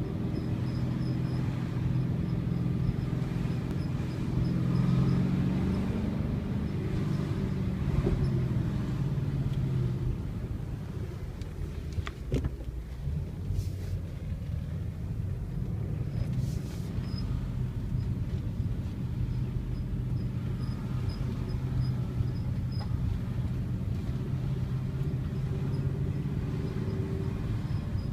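2012 Ford Mustang GT's 5.0-litre V8 running steadily, with a faint, high-pitched squeak repeating about twice a second over the engine hum. A single sharp click sounds a little past halfway.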